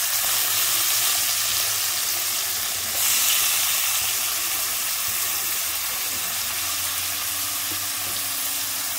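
Diced raw mango frying in hot oil with mustard seeds, sesame and turmeric in a kadhai, giving a steady sizzle that gets briefly louder about three seconds in.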